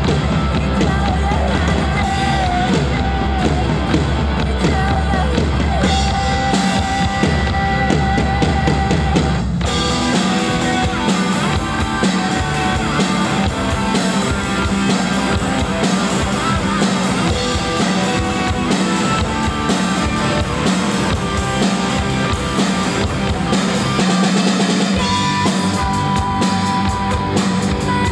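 Acoustic drum kit played along to a rock backing track: kick, snare and cymbals over the band's recorded music. There is a short break about nine and a half seconds in, after which the drumming gets busier.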